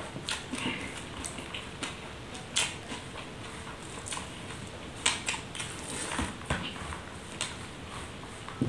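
Eating rice by hand from a banana leaf: fingers scraping and gathering rice on the leaf and mouth sounds of chewing, heard as irregular soft clicks, smacks and crackles, a few of them louder.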